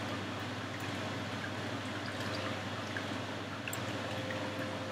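Room tone: a steady background hiss with a low hum and a faint steady tone, and one faint click about three-quarters of the way through.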